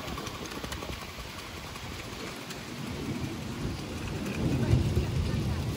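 A 5-inch gauge Polly "Trojan" miniature steam locomotive and its mixed train rolling past on the track: a noisy rumble of wheels that gets louder about four and a half seconds in.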